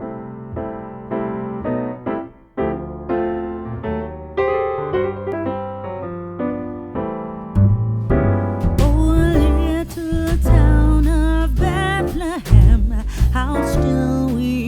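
Background music: a solo piano or keyboard intro of separate notes, then about halfway in a louder, fuller band comes in with a singer.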